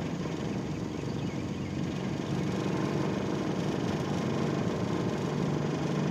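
Outboard motor running steadily with a low hum, pushing a fishing boat at about 6 miles an hour.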